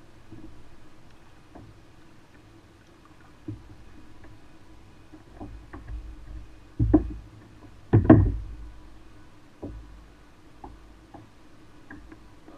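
Knocks and thumps of gear against a kayak's hull: scattered light taps, with two loud thumps about seven and eight seconds in.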